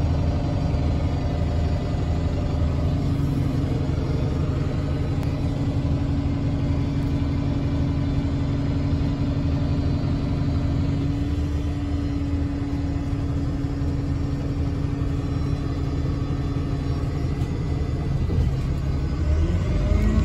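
ADL Enviro 200 MMC bus's six-cylinder diesel engine running, heard from inside the passenger cabin: a steady drone with a held hum. Near the end a rising whine sets in as the bus accelerates.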